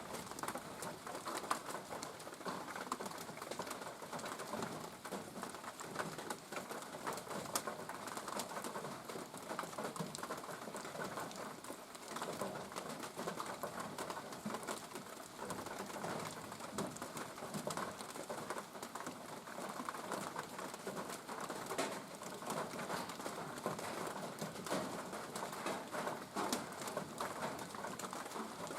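Steady rainfall, an even hiss with many small drops pattering and ticking on nearby surfaces.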